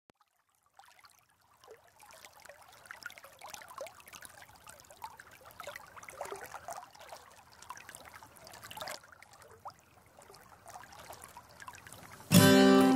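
A small stream trickling and gurgling quietly, with little bubbling blips. Near the end an acoustic guitar, tuned a full step down and played with a capo and a partial capo, comes in suddenly with a loud strummed chord.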